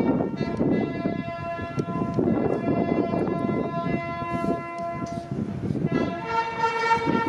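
Slow music of long held notes from wind instruments. The notes are sustained and stacked, and the chord moves to new pitches about four seconds in and again about six seconds in, over a low background murmur.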